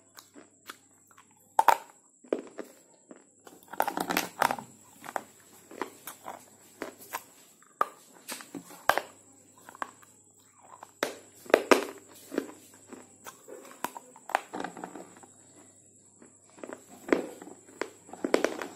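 Slate pencils being bitten and chewed: a series of sharp, crisp crunches and snaps at irregular intervals, some in quick clusters, with quieter chewing between.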